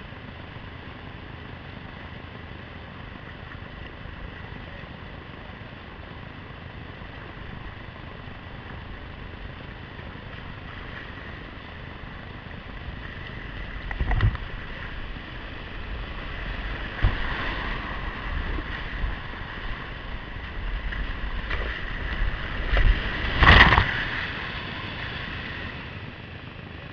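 Whitewater rushing steadily, then from about halfway in a kayak plunges through the rapid: louder churning and splashing with several heavy thumps, the loudest one near the end.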